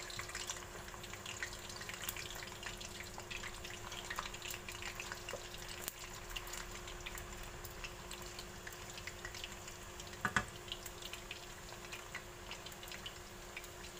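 Potato wedges deep-frying in hot oil in a wok: a steady sizzle with many small crackles. A wooden spatula stirs them, and there is one louder knock about ten seconds in.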